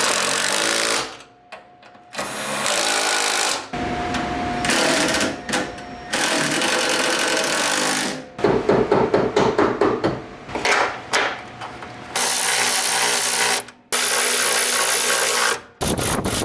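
Power tools and hand tools working on car suspension bolts, in short bursts that change abruptly every second or few, with a stretch of rapid clicking near the middle.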